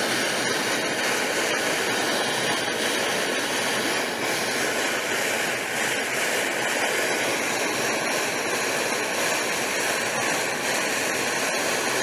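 Steady hissing rush of a small oxyhydrogen torch flame, its gas enriched with acetone vapour, held on copper tubing while brazing.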